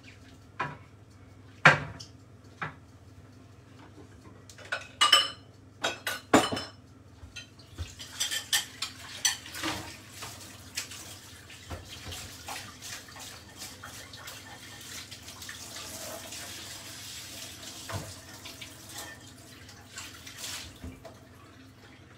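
Dishes and cutlery clattering and clinking in a kitchen, with several sharp knocks in the first seven seconds. From about eight seconds in, a tap runs steadily into the sink for about thirteen seconds, with more clinks, and stops shortly before the end.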